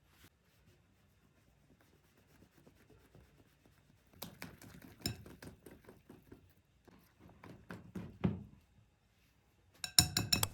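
Kitchen utensils clinking and knocking against dishes in two short runs of taps, then a brief, louder ringing chime near the end.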